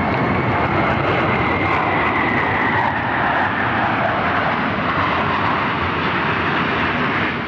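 Jet noise from a formation of F-16 Fighting Falcon fighters flying overhead: a loud, steady rushing noise with a high whine that slowly drops in pitch over the first few seconds.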